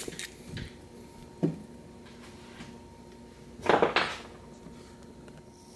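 Metal camp cookware being handled: a few light knocks against the Trangia brass alcohol stove and its aluminum pail stand, then a louder, short metal clatter about four seconds in.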